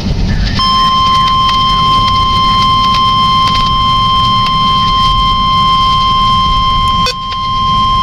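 Midland handheld NOAA weather radio sounding its steady 1050 Hz warning alarm tone through its small speaker, which signals that a warning message is about to be broadcast. The tone starts about half a second in and dips briefly about seven seconds in, over the low rumble of a car.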